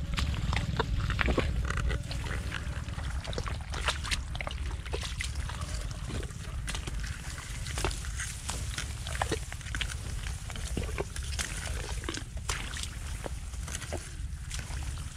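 Rice leaves brushing and scraping against the camera as it pushes through a rice paddy, many short irregular rustles over a steady low rumble on the microphone.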